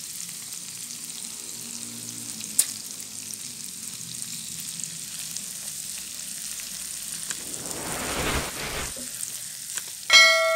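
Sliced onion, garlic and chilies sizzling in a frying pan with tomato sauce just poured in, stirred with a spatula. There is a sharp click about two and a half seconds in, and the sizzling and stirring swell louder for about a second around eight seconds in.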